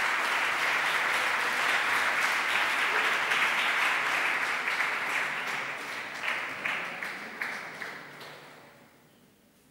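Audience applauding: steady dense clapping that thins to a few scattered claps and dies away near the end.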